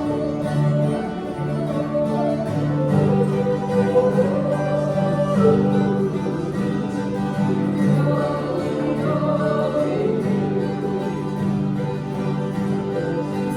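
Small acoustic group playing a country song on plucked strings, mandolin and guitar, with singing over the accompaniment.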